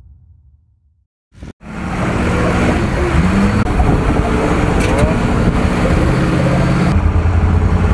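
A Ford Super Duty pickup's diesel engine, exhausting through a bed-mounted stack, pulls the truck through snow and mud. It cuts in about a second and a half in, after a brief tail of fading music and a moment of silence. The engine note rises and falls with the throttle and gets heavier near the end.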